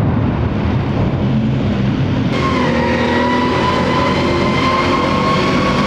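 Tracked armoured personnel carrier of the M113 type driving past: a loud steady engine with the running gear of its tracks. A steady high whine joins in about two seconds in.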